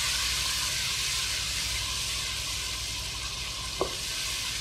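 Onion, tomato and yogurt masala sizzling in oil in a nonstick karahi as it is fried and stirred with a wooden spoon: a steady hiss, the bhuna stage of the curry base. A single short knock near the end.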